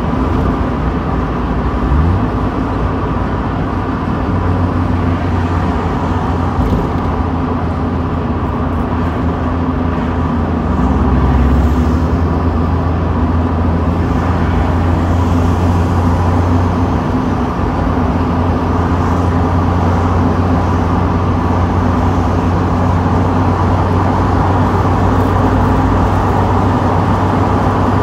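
Mazda Miata's four-cylinder engine running while driving with the top down, under steady wind and road noise. A brief rise in engine pitch about two seconds in, and the engine grows louder for a moment around twelve seconds in.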